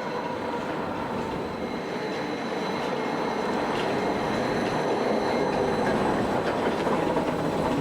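Train running on rails: a steady rolling noise that slowly grows louder, with thin steady high tones over it.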